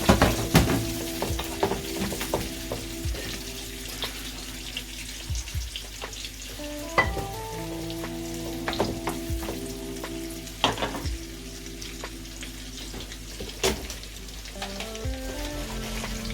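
Chopped onions and garlic sizzling in hot oil in a pot, with the spoon knocking against the pot now and then while stirring, loudest just at the start. Soft background music plays underneath.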